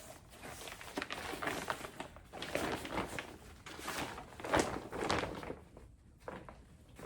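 Rustling and crinkling of packaging and a laundry bag being handled and unfolded by hand, in irregular bursts with a sharper knock about four and a half seconds in.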